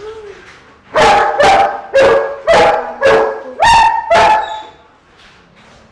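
Large dog barking about seven times in quick succession, roughly two barks a second, after a brief faint whine.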